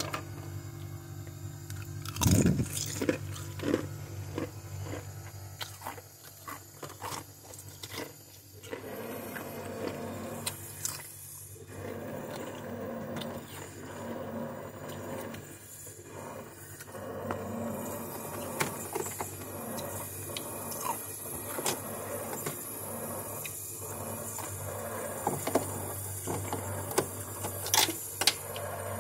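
Plastic ice cube trays being handled and slid over a frosted freezer plate: irregular scraping, knocks and crunching of frost and ice, the loudest knock about two seconds in. A steady low hum runs underneath.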